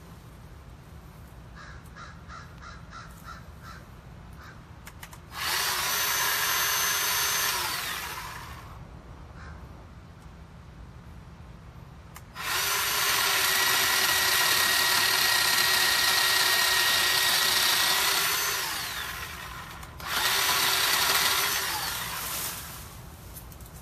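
Bauer 20V cordless electric chainsaw running in three bursts: a short one, a long run of about seven seconds as the chain cuts through a small tree trunk, then a short one. Each burst winds down in pitch when the trigger is let go. A crow caws a few times before the first burst.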